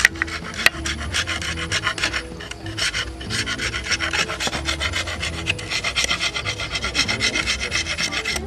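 An animal horn being scraped back and forth against a wet stone slab, grinding it down in quick, even rasping strokes that grow stronger about three seconds in.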